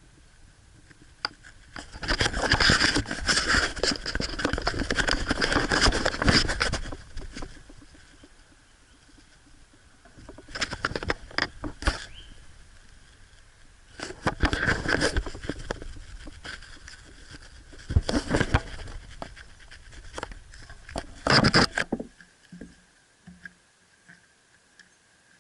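Nissan RB26DETT twin-turbo straight-six revved in five bursts, the first lasting about five seconds, with dense knocking through each burst. The owner takes the knock for rod knock, and it gets worse with more RPM.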